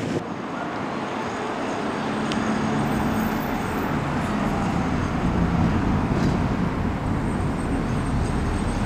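Steady outdoor rumble of road traffic, with a faint engine hum, growing a little louder over the first half.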